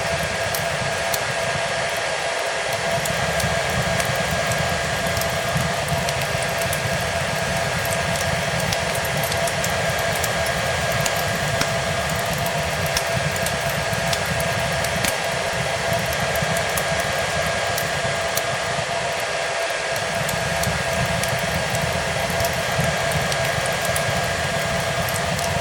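A hair dryer blowing steadily, its motor giving a constant whine over the rush of air, mixed with the small pops and crackles of a fireplace fire.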